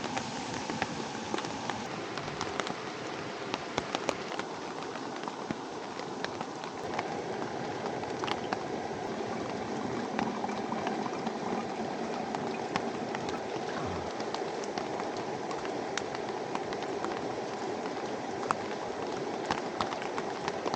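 Steady rain falling, with scattered sharp hits of single drops.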